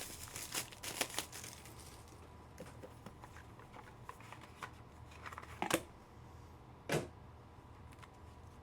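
Trading cards being handled on a table: soft rustling and clicking of cards being slid and sorted, then two sharper taps near the end.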